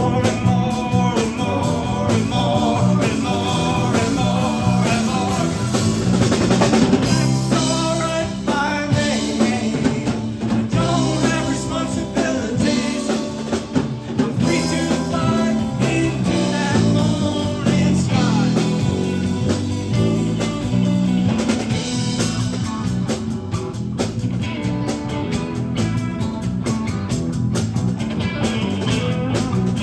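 Blues-rock band playing an instrumental passage: electric guitar over a drum kit, with no vocals.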